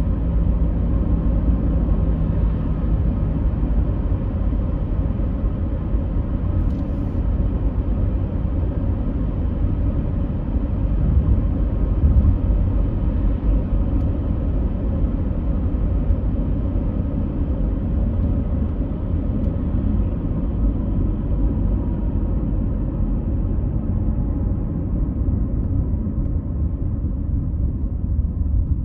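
Steady low rumbling noise with no distinct events, like the drone inside a moving vehicle.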